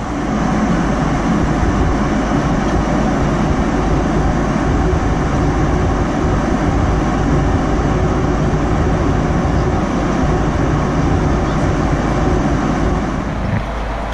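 Steady roar of airflow and jet engines heard inside the cabin of a Boeing 767-300ER in flight. The roar eases slightly just before the end.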